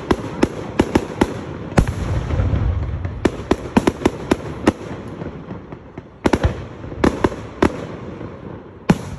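Aerial fireworks bursting: a rapid, irregular run of sharp cracks and bangs, with a deeper rumble swelling about two seconds in. The cracks thin out around five to six seconds in, then start again.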